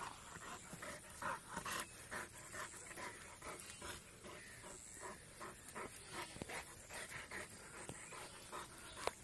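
Large dog panting quickly and steadily, about three breaths a second, during rough play. Near the end there is a single brief sharp click.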